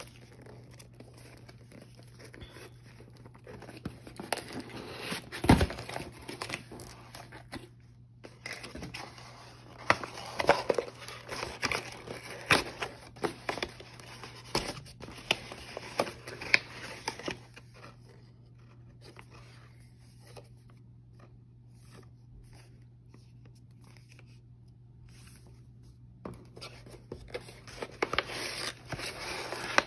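Hands crinkling, rustling and tearing tissue-paper packing inside a cardboard shipping box: irregular crackles, thinning out past the middle and busier again near the end. A faint steady low hum runs underneath.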